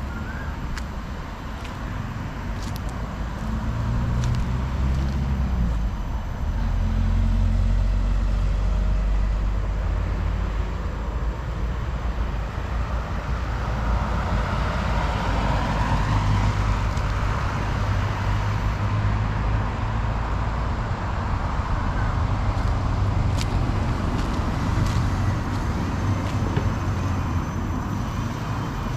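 Steady road traffic noise, with a low rumble throughout and a vehicle passing that swells and fades about halfway through.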